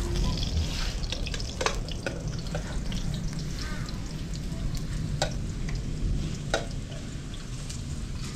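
Vegetable slices sizzling steadily in hot oil in a pan over a wood fire, stirred with a metal spoon. A few sharp clicks stand out, as the spoon knocks the pan.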